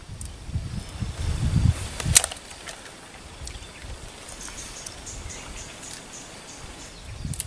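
Outdoor lakeside ambience. Low rumbling on the microphone in the first couple of seconds, then a single sharp click just after two seconds in, the loudest sound. In the second half comes a run of short high chirps, about three a second.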